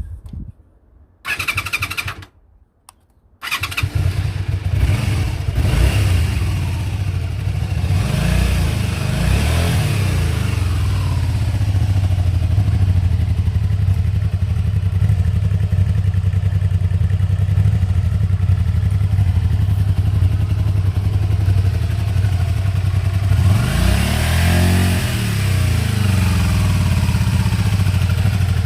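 Honda VT250F's 250 cc V-twin engine cranks briefly, starts about three and a half seconds in and idles steadily, with fresh oil just put in. It is revved up and back down once, about 24 seconds in.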